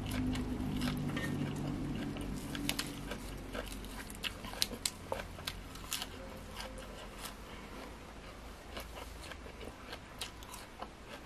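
Close-up chewing of crisp raw greens and spicy salad: a run of sharp, wet crunches and bites, thicker in the first half and thinning out toward the end.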